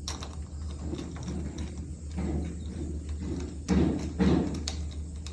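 Irregular knocks and clicks of metal door-knob parts and screws being handled and started by hand into the door, with a few sharper taps close together about three and a half to four and three quarter seconds in.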